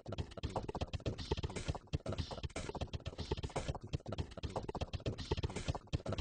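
Audience applauding: a dense, irregular patter of hand claps.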